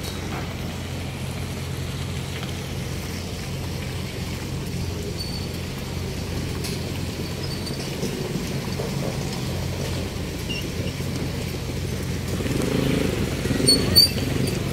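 Steady low hum of vehicle engines running, with a few sharp clicks near the end.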